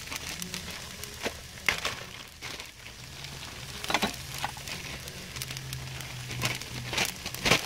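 Burrito filling of vegetables, beans, rice and an egg sizzling in a frying pan over a low steady hum, with scattered clicks and knocks of utensil and pan handling, the loudest two near the end.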